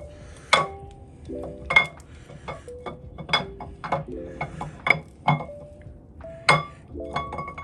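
Steel camshaft being slid out of a 5.7 Hemi V8 block, its lobes clinking and knocking against the cam bearings and bores in irregular sharp strikes, each with a short metallic ring.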